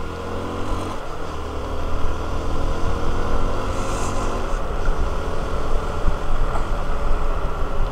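Hero Xpulse 200 single-cylinder motorcycle engine running under way, its pitch shifting a little in the first few seconds. Steady wind and road rush sits under it.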